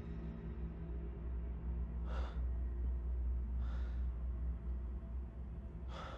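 A low, steady drone of ominous film music, with three short, sharp breaths or sighs about two, four and six seconds in.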